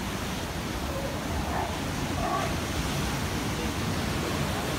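Steady ocean surf washing over a rocky shore, with a faint short call about two seconds in.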